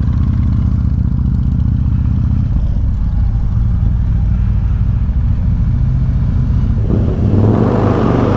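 Harley-Davidson Road King's V-twin engine running as the bike rides at low speed. About seven seconds in the sound grows louder and fuller as the bike enters a concrete parking garage.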